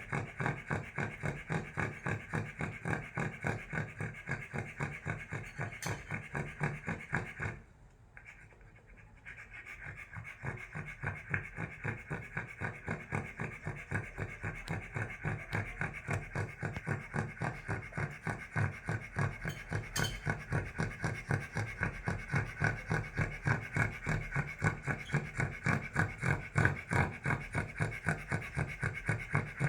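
A Cavalier King Charles Spaniel snoring, raspy breaths in a fast, even rhythm. It stops for about two seconds a quarter of the way through, then picks up again.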